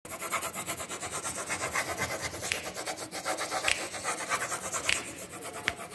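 Quick, rhythmic rasping strokes of something rubbed back and forth on paper, with a few brief sharper scratches in the middle and near the end.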